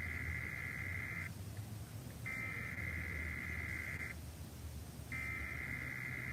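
Emergency Alert System SAME header: bursts of digital data tones, each about two seconds long, repeated with about a second's gap between them. The first burst ends about a second in, a second burst plays in full, and the third begins near the end. The bursts encode the start of a Tornado Watch alert.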